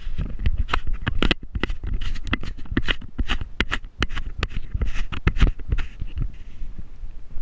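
Handling noise from fingers rubbing and tapping on a GoPro's plastic housing: an irregular run of clicks and scrapes, several a second, over a low rumble.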